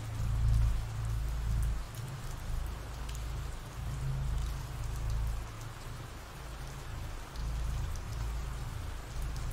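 Ambient rain recording: steady rain falling, with a low rumble underneath that swells and fades every second or two.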